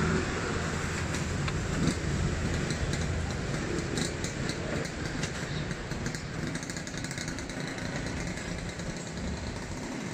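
An engine running steadily with a low hum, under the general noise of an outdoor food stall, with a few faint clinks of serving utensils about four to five seconds in.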